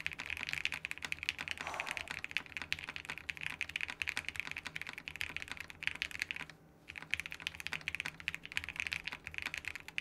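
Fast typing on a Pixelspace Capsule custom mechanical keyboard: a dense run of key clacks that breaks off briefly about six and a half seconds in and then carries on.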